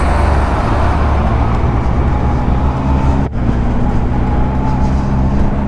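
Benelli TRK 502X motorcycle's parallel-twin engine running steadily under way on a dirt road, with wind and road noise. A brief break comes a little over three seconds in.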